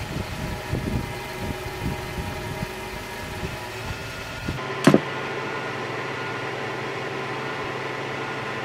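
Fuel truck's engine and pump running steadily while fuel is metered into an aircraft tank, with a loud clunk about five seconds in.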